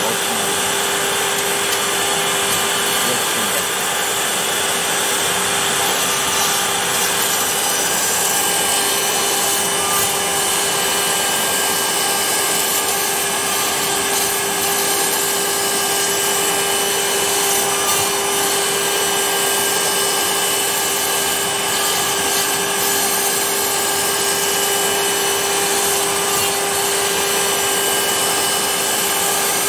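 Homemade CNC router's spindle running with a steady whine while its end mill cuts a pass through a green foam block for a tailplane core, with a continuous rushing hiss from the cut.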